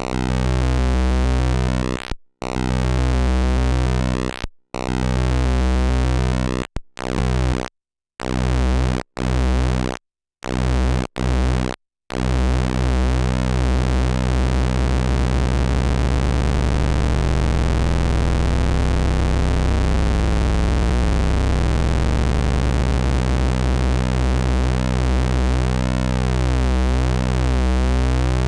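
Eowave Orage analog oscillator's pulse-wave output with its pulse width swept by an LFO: a low buzzing tone whose timbre shifts in cycles as the LFO rate is changed. It cuts out briefly again and again, the breaks coming closer together, then runs on without breaks from about twelve seconds in.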